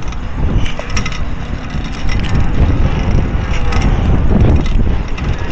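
Trikke three-wheeled scooter rolling over skatepark concrete: a loud, steady low rumble of wheels and wind on the microphone, with a sharp click about a second in.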